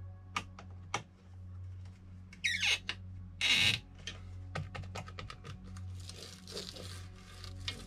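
Hands handling a belt 3D printer's belt and frame: scattered clicks and taps, a quick falling squeak about two and a half seconds in, then a loud brief rasping noise, and softer rubbing near the end, over a steady low hum.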